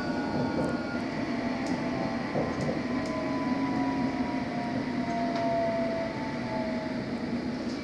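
Interior of a London Underground S8 Stock train running along the track: steady rumble of wheels and body, with a traction-motor whine of several tones that slowly falls in pitch, and a few faint clicks.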